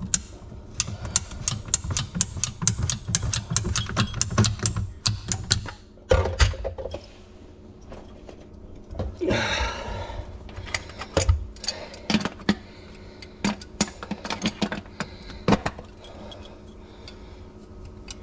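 PVC sink P-trap being unscrewed and taken off with metal slip-joint pliers, as the leaking trap is removed for replacement: a quick run of clicks and rattles of plastic and metal for the first six seconds, a scrape about ten seconds in, then scattered knocks as the parts are handled.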